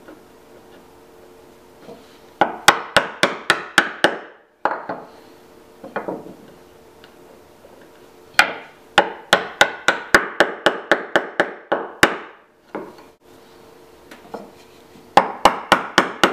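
Mortise chisel being driven into wood with sharp, quick blows, about three or four a second, in runs of several strikes with short pauses between: chopping along the knife-cut outline of a butterfly-key mortise to deepen it.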